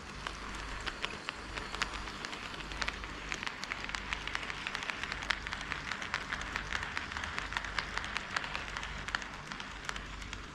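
HO-scale model train running on KATO Unitrack, its wheels rattling and clicking quickly over the rail joints. It grows louder as it passes close, then fades near the end.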